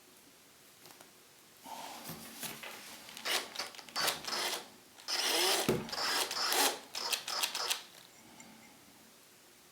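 Scraping and rubbing of hand tools and wire being worked by hand, in irregular bursts for several seconds, with one sharp click a little past halfway.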